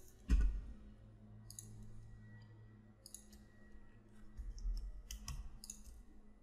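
Computer mouse buttons clicking a few times, spaced a second or so apart, with a low thump just after the start and a low rumble around four to five seconds in.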